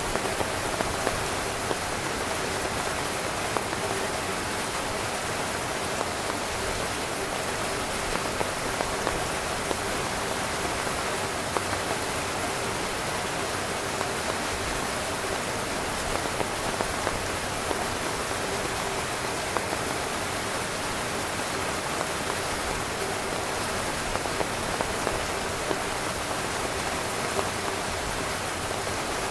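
Heavy rain pattering steadily on a tent's fabric, a dense even hiss with scattered sharper drop hits.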